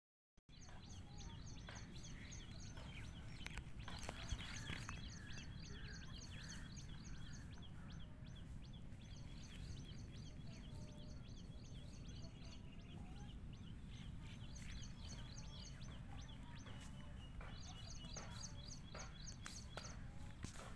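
Small birds chirping quickly and continuously in high-pitched runs, over a low wind rumble on the microphone, with a few faint handling knocks.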